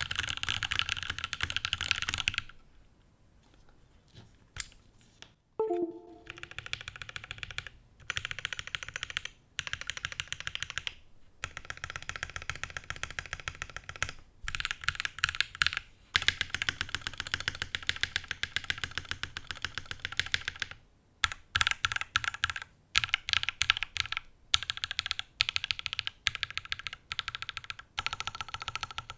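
Typing on a gasket-mounted 65% custom mechanical keyboard with lubed Alpaca v2 linear switches, an FR4 plate and GMK keycaps: quick runs of muted, dull keystrokes. The typing stops for about three seconds near the start and pauses briefly several more times.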